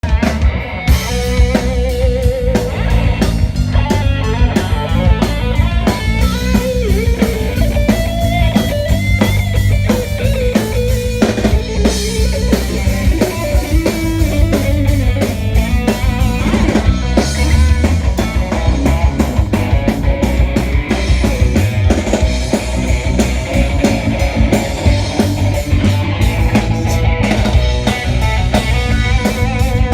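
Live band playing instrumental music: a guitar carrying a wavering lead melody over a steady drum-kit beat.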